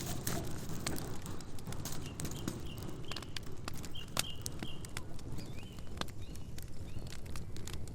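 Campfire crackling: burning wood with frequent, irregular sharp pops and snaps over a low steady rumble of flame.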